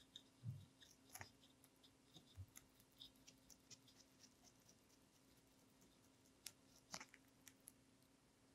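A lionhead–Dutch mix rabbit biting and chewing raw cucumber: faint, crisp, irregular little crunches and clicks, dense in the first half, sparser in the middle, with a few sharper ones near the end.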